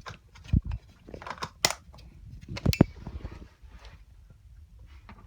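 Handling noise as a camcorder lens cap is found and fitted: four or so sharp clicks and knocks in the first three seconds, then quieter rustling.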